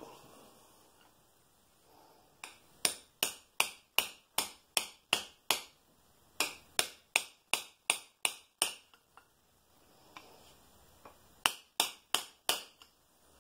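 Hammer striking a screwdriver set in a slot ground into a Bridgeport J-head's head-rotation worm gear: sharp metal-on-metal taps, about two or three a second in two long runs, then four more near the end, knocking the gear round in its housing so it can be cut further.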